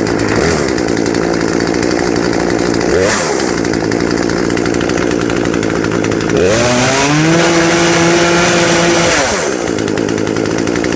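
Poulan Wild Thing two-stroke chainsaw, fitted with a new carburetor, idling. Its throttle is blipped briefly twice, then it is revved up and held high for about three seconds before dropping back to idle.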